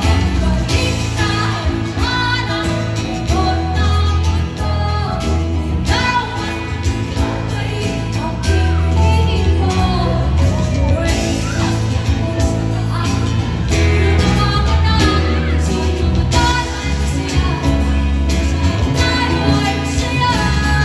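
A song with a singing voice over a heavy bass line.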